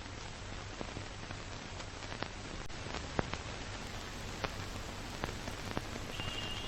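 Steady hiss of rain, with irregular sharp drip ticks.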